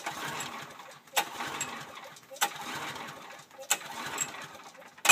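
Recoil pull-starter of a Briggs & Stratton small engine yanked over and over, about once every 1.2 seconds. Each pull gives a sharp snap and then a second of whirring as the engine turns over. It never fires: the engine won't start.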